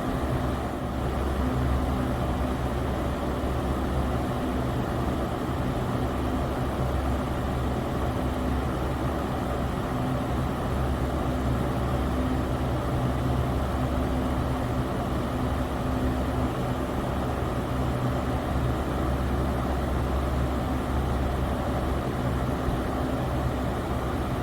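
Electric fan running steadily: an even rushing noise over a low, constant motor hum.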